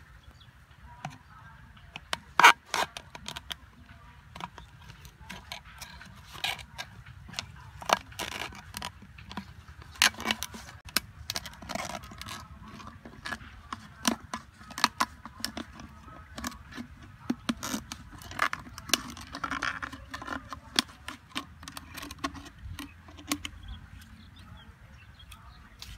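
Scissors cutting through a thin plastic soda bottle: irregular sharp snips and plastic crackles, several a second, over a low steady rumble.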